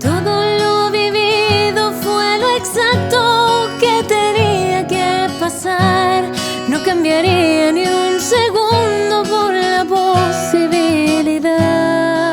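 Pop-folk song: a woman's voice sings a long melody with wide vibrato over a strummed acoustic guitar.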